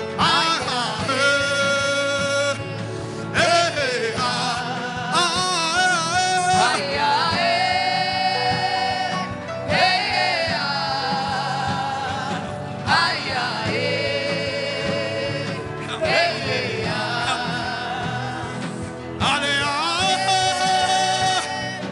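Gospel worship music: a solo voice singing long, wavering held notes and sliding pitches in phrases of a few seconds, without clear words, over a steady instrumental backing.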